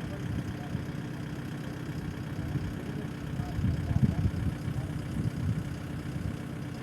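An engine idling steadily with a low, uneven rumble that swells briefly about four seconds in.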